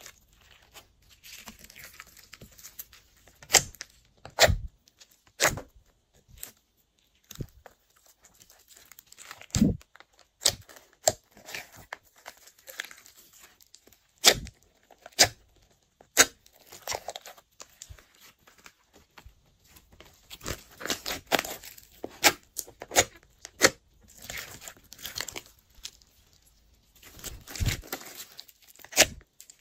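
Glossy slime being worked by hand, giving irregular sharp pops and clicks between stretches of soft, sticky crackling.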